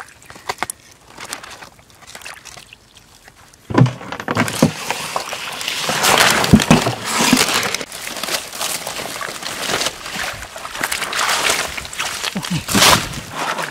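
Hands digging and squelching in wet mud and pulling at grass and stems, with irregular rustling and sloshing close to the microphone. Quiet with a few faint clicks at first, much louder from about four seconds in.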